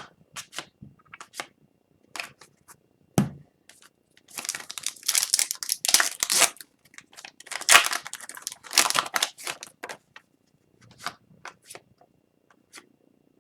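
Wrapper of an Upper Deck Extended Series hockey card pack being torn open and crinkled, in several noisy stretches about four to ten seconds in. Scattered light clicks and taps come before and after.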